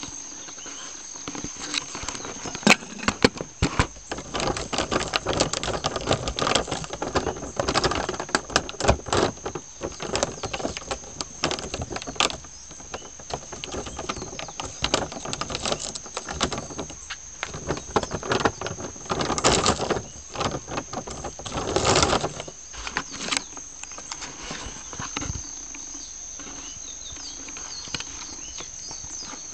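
Irregular rustling and crackling in dry leaf litter and twigs, full of sharp clicks, busiest through the middle and dying down near the end. A thin steady high-pitched whine runs underneath.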